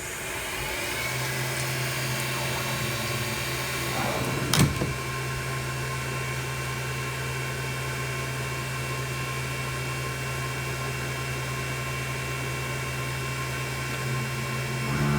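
Grizzly G0704 CNC-converted milling machine running a light chamfering pass: a steady spindle and motor hum with a constant low tone, and one brief sharp knock about four and a half seconds in.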